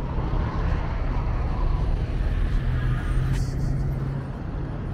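City road traffic: car engines running with a steady low hum and the rush of vehicles passing. The higher hiss drops away suddenly about three and a half seconds in.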